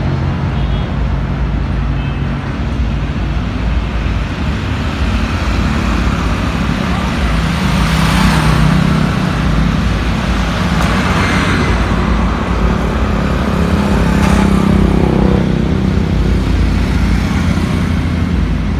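Road traffic on a wide city road: motorcycles and scooters, with the odd car, passing one after another over a steady low engine rumble. Three louder pass-bys swell and fade in the middle stretch.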